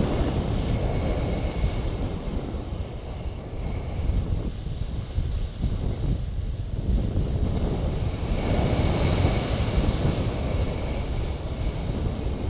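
Wind buffeting a pole-mounted camera's microphone as a paraglider flies: a dense low rumble that surges and eases in gusts, a little weaker for a few seconds in the middle.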